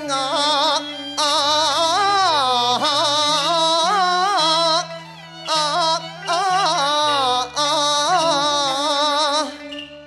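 Cantonese opera song with traditional Chinese ensemble accompaniment: a melody with wide vibrato and sliding pitches, in phrases broken by short pauses, over steady held low notes.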